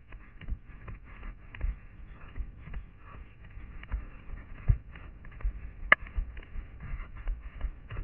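A runner's quick footfalls on a forest floor of pine litter and dry undergrowth, with brush scraping past the legs. There is a sharp snap about six seconds in.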